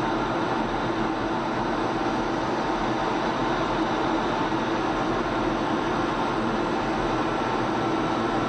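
Steady in-flight noise inside a fighter jet's cockpit, the engine and rushing air making an even, unchanging drone.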